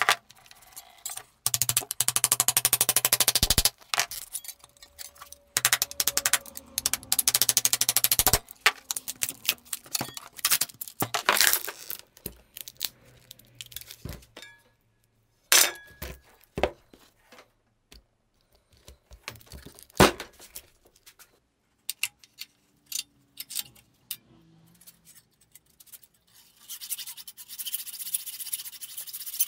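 Rapid scraping strokes of a hand scraper along the steel edge of a resin-filled electromagnet box, clearing off hardened resin. Then scattered clinks and knocks with two sharp knocks, and near the end steady back-and-forth hacksaw strokes through metal.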